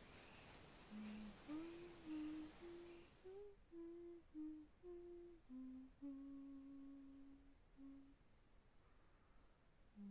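A person humming a slow, wandering tune softly, one held note after another. A soft hiss runs underneath and stops about three and a half seconds in.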